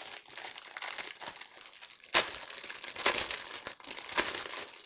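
Packaging crinkling and rustling as hands rummage through a cardboard shipping box, with sharper crackles about two, three and four seconds in.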